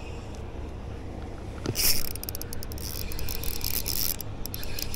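Spinning reel's drag clicking in rapid, irregular runs as a hooked bass pulls out line, with a sudden loud rush of noise about two seconds in.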